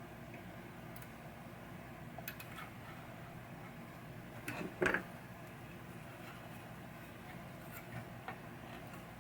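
Small handling sounds from bench work on a pinball power supply board: a few faint clicks and taps over a low, steady background hum, with one short, louder clatter about five seconds in.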